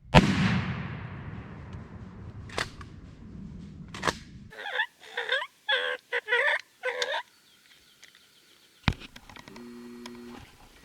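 A single 20 gauge shotgun shot, loud and sharp, its report rolling away and fading over about four seconds.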